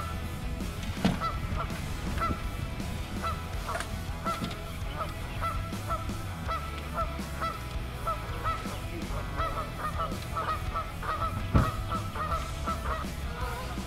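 Geese honking over and over, short calls about one or two a second. A knock about a second in and a louder thump near the end.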